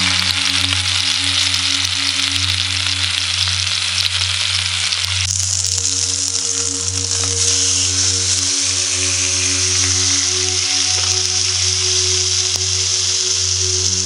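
Delmonico steak sizzling steadily in a hot nonstick frying pan as it sears. The sizzle turns brighter and hissier about five seconds in.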